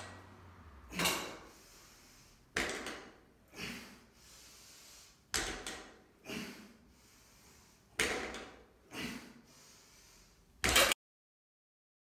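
Plate-loaded A-Unit Pentagon Bar on a landmine knocking and clanking through frame deadlift reps: about eight sharp metallic knocks, mostly in pairs about a second apart. The last knock, near the end, is the loudest, and the sound then cuts off abruptly.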